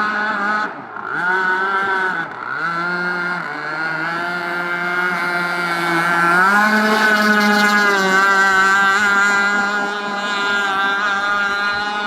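Big gas-powered RC boat's engine running at speed. Its pitch drops sharply twice in the first few seconds as the throttle is let off, then holds lower and climbs again about halfway through as it is throttled back up.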